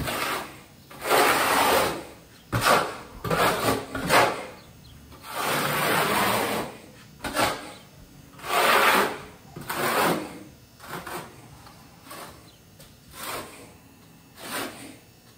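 Steel trowel scraping thinset mortar across a wall in a series of strokes, each under a second long, at irregular spacing, while the bed for Kerdi waterproofing membrane is spread.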